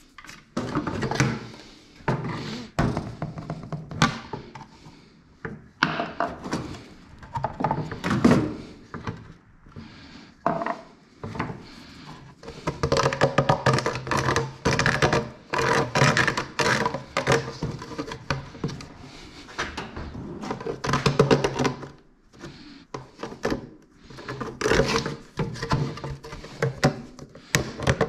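Irregular thunks and knocks of parts and tools being handled during assembly, coming in uneven clusters.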